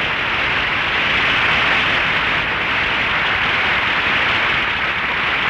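A loud, steady rushing roar: a radio-drama sound effect of a rocket plane's engine running.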